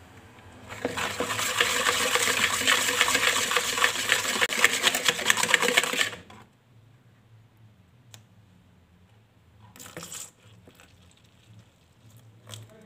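Wire whisk beating pancake batter fast in a plastic bowl, a rapid clattering rattle that runs for about five seconds and then stops. A brief scrape follows about ten seconds in.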